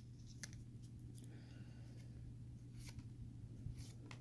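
Faint clicks and light rustling of a stack of trading cards being handled and flicked through by hand, over a low steady hum.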